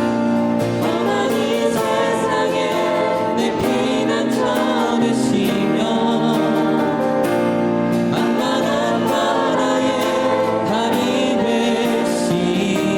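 A group singing a Korean worship song together, over sustained instrumental accompaniment.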